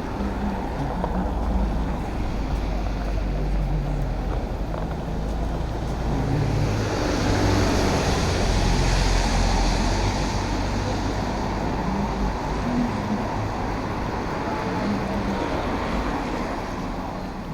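Road traffic noise: a steady low rumble with tyre and wind hiss, which swells louder about seven to eleven seconds in and then eases off.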